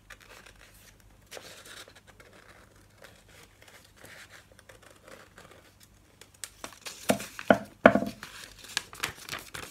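Small scissors snipping slowly through folded sheet of coloured paper, cutting out a heart shape. About six seconds in, this gives way to louder rustling and crinkling of the paper, with several sharp clacks.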